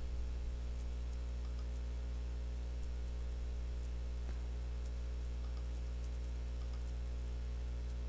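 Steady electrical hum with a ladder of evenly spaced overtones: the background hum of the recording microphone's line. A single faint click about four seconds in.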